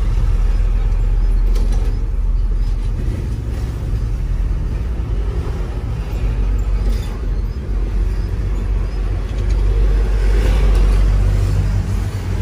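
Hino 500 truck's diesel engine running with a steady low rumble, a little louder near the end.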